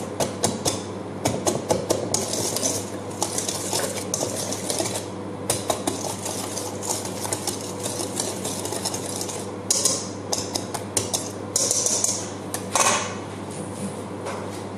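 Wire whisk beating a mayonnaise-and-ketchup marinade in a large stainless steel mixing bowl, with rapid metal-on-metal clinking and scraping that stops near the end.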